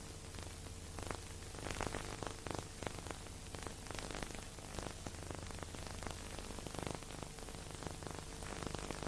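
Steady hiss with frequent small crackles and a low steady hum: the background noise of an otherwise silent soundtrack, with no music or speech.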